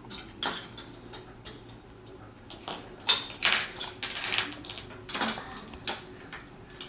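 Irregular small clicks and rattles of plastic Lego pieces being handled, most of them in a cluster about halfway through.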